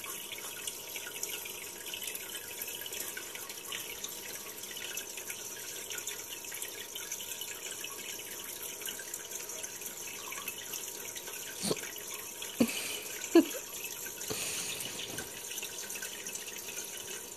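Steady running water of an aquarium video playing through laptop speakers, with three short sharp knocks between about twelve and thirteen and a half seconds in, the last the loudest.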